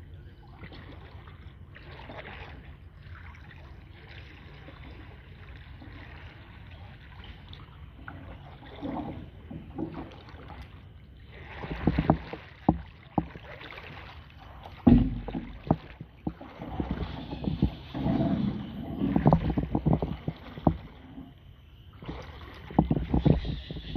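Kayak paddle strokes in a calm creek: the blades dipping and splashing in irregular bursts that begin about a third of the way in and grow louder and busier in the second half, after a quieter stretch.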